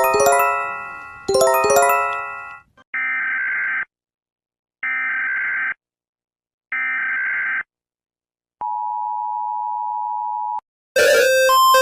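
Emergency Alert System alarm sequence: two chime strikes with falling, fading notes, then three one-second bursts of the warbling SAME header data tones, then the steady two-tone EAS attention signal for about two seconds. Near the end a louder, different alarm with rapidly repeating beeps begins.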